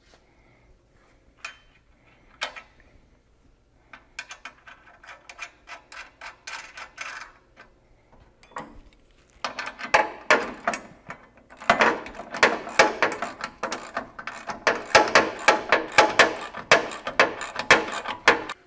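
Hand ratchet wrench clicking in quick runs as a bolt on a steel trailing-arm bracket is tightened. There are a few scattered clicks at first, and the runs grow faster and louder from about ten seconds in.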